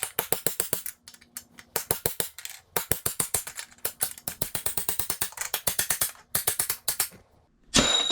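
Hammer blows on a steel punch, driving out a dirt bike's swing arm pivot bolt: rapid taps, about eight to ten a second, in runs with short pauses.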